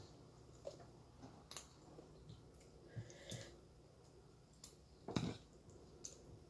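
Faint, scattered crunching and clicking of someone biting and chewing puffed kerupuk crackers: several separate short crunches, the loudest about five seconds in.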